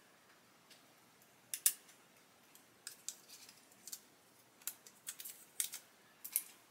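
Light, scattered clicks and ticks of a hobby knife and tweezers against a brass photo-etch fret as the protective plastic film is lifted off its grilles, the loudest a quick double click about one and a half seconds in.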